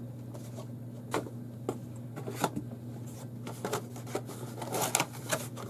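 Small cardboard box being handled on a tabletop: scattered light taps, scrapes and rustles, over a steady low hum.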